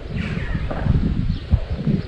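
Birds calling outdoors, a few short falling chirps, over a low, uneven rumble on the microphone.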